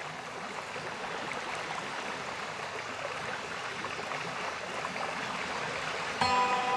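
Ocean surf washing in on the shore, a steady rush of breaking waves. About six seconds in, steady music tones come in abruptly and louder.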